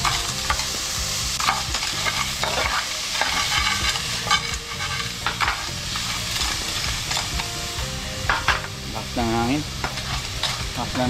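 Sliced onion, garlic and ginger sizzling in hot oil in a frying pan on a portable butane stove, stirred with a spoon that scrapes and clicks against the pan: the aromatics are being sautéed.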